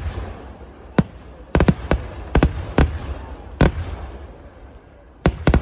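Fireworks going off: about nine sharp bangs at uneven intervals, some in quick pairs, with a low rumble between them.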